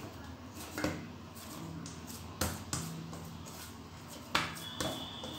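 A hand working a ball of biscuit dough in a stainless steel plate, with soft rubbing and about five light knocks and taps of fingers and dough against the metal.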